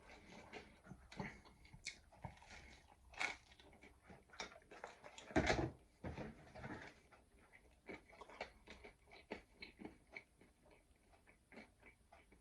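Faint chewing of a mouthful of pizza, with scattered soft clicks and small knocks.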